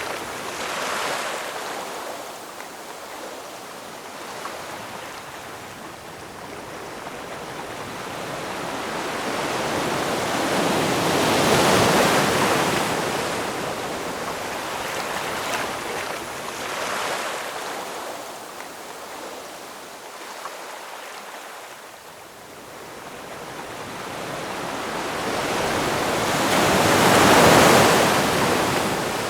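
Ocean waves breaking in slow surges that swell and ebb. The loudest crest about twelve seconds in and again near the end, with smaller waves between.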